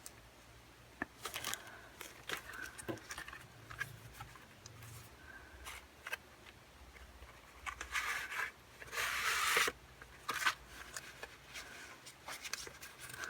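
Paper and plastic packaging handled by hand: scattered rustles, scrapes and light taps as a CD album and its paper inserts are opened and taken out, with a longer, louder rustle about nine seconds in.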